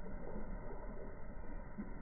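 Steady low background rumble and hiss, with no distinct sound standing out.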